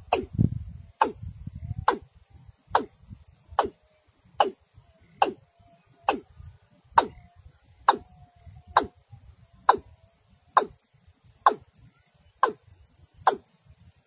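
Watercock calling: a sharp 'tock' note that falls in pitch, repeated evenly about once a second. A faint rapid high peeping joins for a few seconds near the end.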